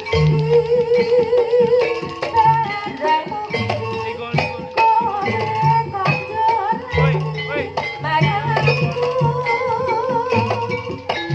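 Javanese jaranan music played live: drums beating a repeating low pattern with rattling percussion, under a wavering melody line.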